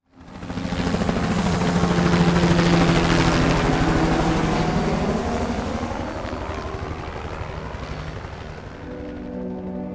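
Rotor aircraft whirring with a steady low hum. It swells in over the first second, is loudest a couple of seconds in, then gradually fades. Soft music comes in near the end.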